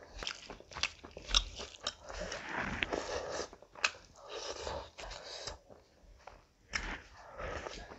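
Close-miked chewing and mouth sounds of a person eating basmati rice and curry by hand: irregular sharp clicks and wet chewing noises, with a brief pause about six seconds in.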